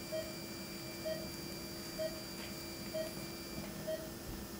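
Operating-room equipment beeping, a short identical tone about once a second, over a faint steady tone that cuts off about three and a half seconds in.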